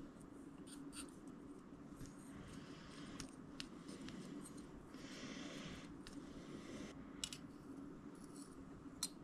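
Faint handling sounds of electrical tape being pressed and smoothed onto a small metal reel spool with fingers and scissors: scattered light clicks and a soft rubbing hiss about five seconds in.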